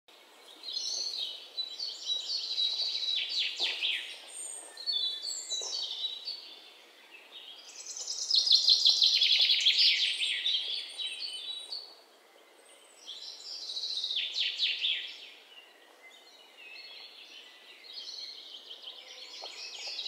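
Bird song: high, rapid chirping trills in phrases of a few seconds each, with short pauses between.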